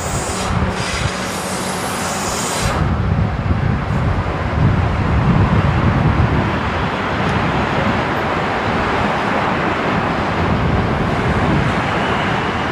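South Western Railway Siemens Desiro electric multiple unit running round a curve, a steady rumble of wheels on rail and traction motors. A higher hiss stops sharply about three seconds in.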